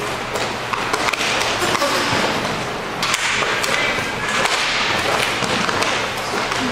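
Inline hockey play: a steady rolling rush of skate wheels on the rink floor, with frequent sharp clacks of sticks striking the puck and each other.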